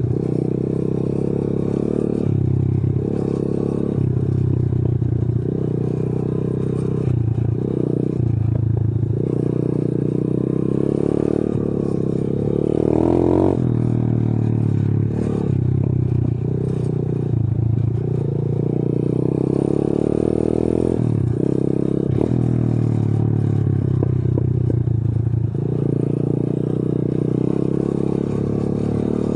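125 cc pitbike's single-cylinder four-stroke engine running under load, its note rising and falling repeatedly with the throttle, and the bike rattling over a rough dirt track.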